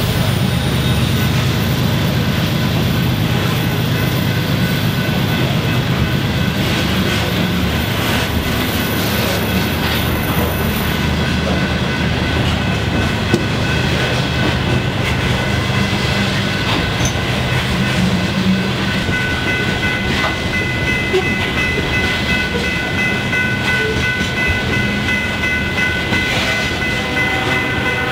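Freight train of coal cars rolling past: a steady rumble of wheels on rail. About two-thirds of the way in, steady high ringing tones join the rumble.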